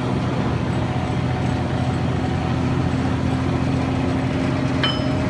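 Military 2½-ton truck's engine running steadily at a fast idle, with a short high squeak near the end.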